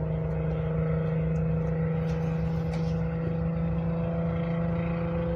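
Steady low machine hum at one fixed pitch, running evenly without changing.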